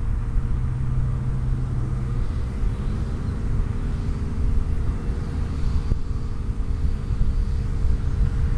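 Steady low outdoor rumble with a faint engine drone, the hum of distant motor traffic.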